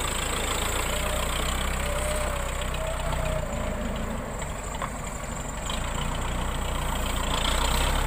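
Diesel engine of a Case 580E backhoe loader running steadily as it drives with a loaded pallet on its forks. It is a little quieter midway and picks up again near the end.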